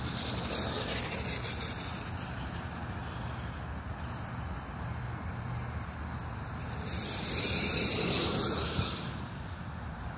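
Electric motor of a Losi DBXL-E 2.0 RC buggy, a Castle 2028 sensored brushless motor on a Mamba XLX controller, whining high as the buggy is driven, briefly early on and louder again from about seven to nine seconds in.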